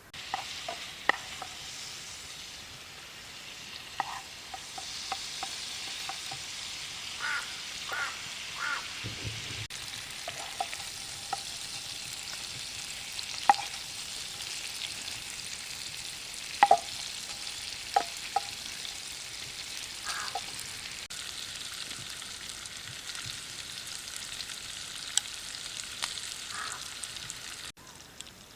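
Meat sizzling as it fries in hot oil, with a steady hiss and the occasional sharp clink and scrape of a metal utensil stirring it in the pan. The sizzle stops abruptly near the end.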